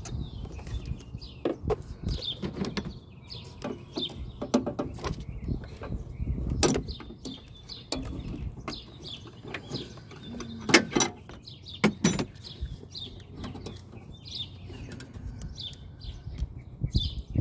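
Irregular clicks and knocks of hand tools and parts being handled during brake master cylinder work, two sharper knocks standing out about two-thirds of the way through. Small birds chirp over and over in the background.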